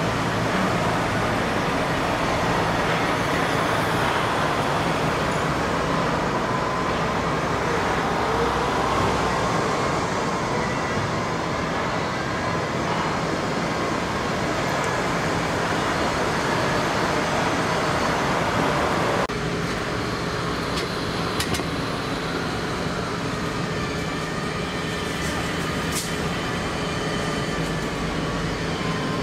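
Steady mechanical noise, dense and unbroken. About two-thirds of the way through it changes abruptly to a slightly quieter steady noise with a few faint clicks.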